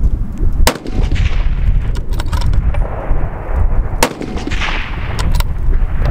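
Two rifle shots from a Lithgow LA105 bolt-action rifle, about three and a half seconds apart, each with a sharp crack and a tail that dies away over about a second. A few lighter clicks come between them.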